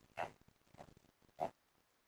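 Pause between snores from a sleeping man, holding three faint, short snuffling noises from his nose and mouth, about half a second apart.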